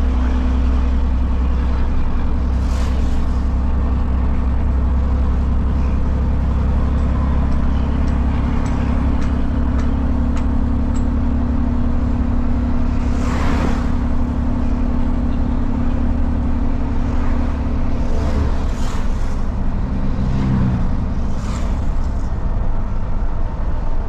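Truck diesel engine with a straight-through exhaust running steadily under way, heard from inside the cab. The engine note shifts in pitch about three quarters of the way in, and a few short hissing sounds come and go, the loudest around the middle.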